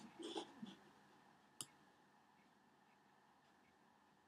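A single sharp computer mouse click about one and a half seconds in, with a short faint sound at the very start; otherwise near silence.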